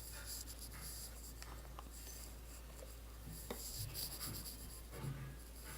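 Faint scraping and rubbing of a slime mixture of white glue being stirred in a bowl, with a few small clicks and soft knocks.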